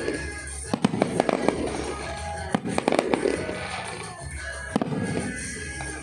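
Aerial fireworks going off in clusters of sharp bangs and crackles: about a second in, around three seconds, and again near five seconds. Music plays underneath.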